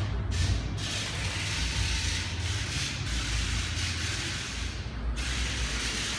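Steady whirring and hiss from a small toy robot car's electric drive motors and gears as it drives, thinning briefly about five seconds in.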